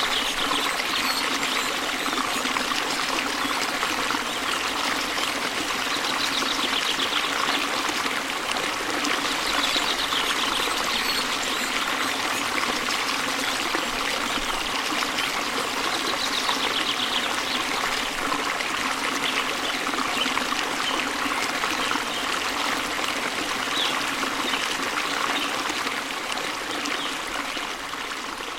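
Stream water splashing and trickling steadily, with faint bird chirps now and then; the sound fades down near the end.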